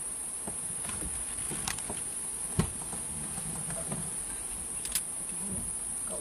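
Steady, high-pitched drone of insects calling in the roadside forest, with a few faint ticks and one short knock about two and a half seconds in.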